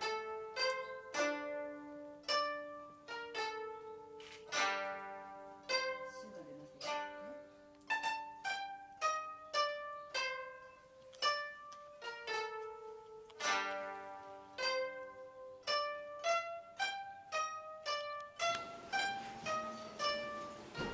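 Background music on a plucked zither-like string instrument, playing a melody of sharply plucked notes that ring and fade, a couple per second. A fuller sustained backing joins about two seconds before the end.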